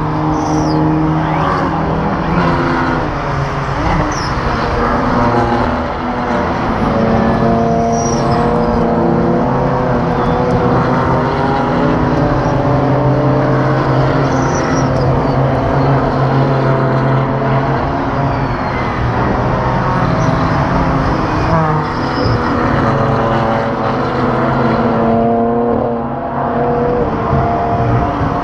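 Several GT4 race cars' engines running hard at racing speed, a pack of cars circulating with overlapping engine notes rising and falling as they accelerate, shift and lift.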